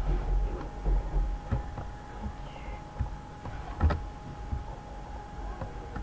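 Computer keyboard keys pressed one at a time, a few scattered clicks as characters are deleted with backspace, the sharpest about four seconds in. There are dull low thumps in the first second or so and a faint steady hum underneath.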